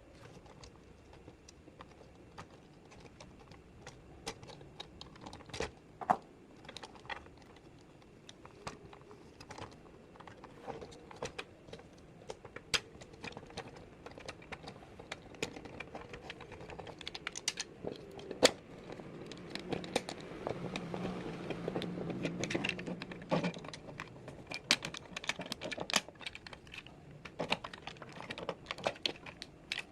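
Plastic toy parts clicking and snapping as an Optimus Prime transforming toy is handled: irregular small clicks with a few sharper snaps, coming faster and busier in the second half.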